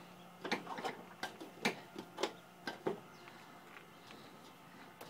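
A puppy's claws clicking and scraping on a truck's bumper as he stands with his front feet up on it: about eight sharp, irregular taps in the first three seconds.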